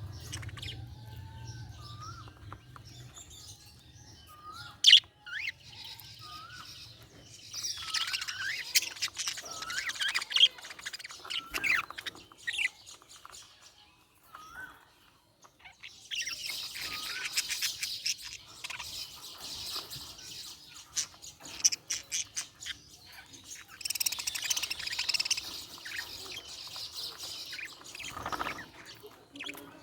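Budgies chirping, with short gliding calls between bursts of rapid warbling chatter, and a single sharp click about five seconds in.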